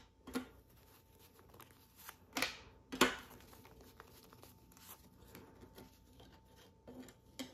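Paper banknotes rustling as they are handled and sorted by hand, in a few short swishes, the loudest about three seconds in.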